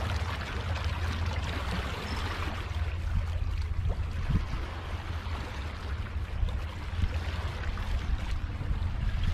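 Seawater washing and trickling over a low rock shelf as small waves break across it, over a steady low rumble of wind on the microphone.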